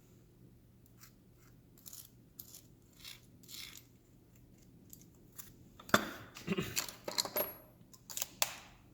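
Metal hand tools clinking and clattering as they are handled and set down. A few light clicks and scrapes come first, then a louder run of clatter from about six seconds in.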